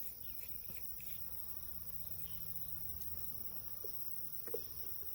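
Steady, high-pitched chirring of crickets, with a couple of faint short taps about four seconds in.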